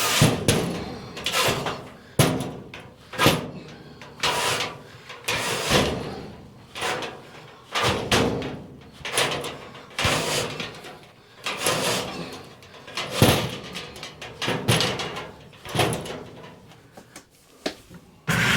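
Chimney brush on a rod being pushed back and forth inside a horizontal metal stovepipe, scraping the pipe's inner wall in strokes about once a second.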